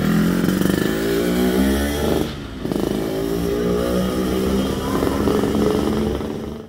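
Yamaha RX-King 135cc two-stroke single-cylinder engine with a stainless 'standar racing' silenced exhaust, accelerating as the motorcycle pulls away. The pitch climbs, drops briefly about two and a half seconds in as it shifts gear, then climbs again.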